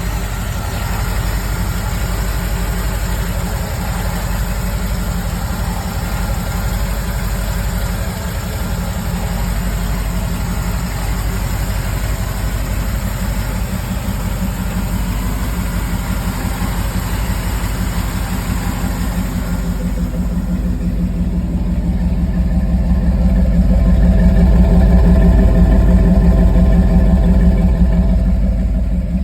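Small-block Chevy 383 stroker V8 running with a steady, pulsing low rumble. It grows louder about two-thirds of the way through, then eases back near the end.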